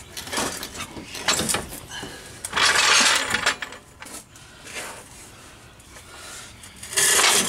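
Metal clinking and scraping as a Jeep Wrangler YJ rear axle housing is shifted by hand under the vehicle. Scattered clicks, with two longer rattling scrapes, one about a third of the way in and one near the end.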